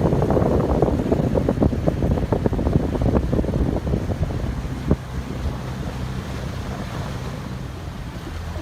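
Boat under way across a lake, with wind buffeting the microphone and water splashing. It is choppiest and loudest in the first few seconds, with a single thump about five seconds in, then settles into a steadier rush.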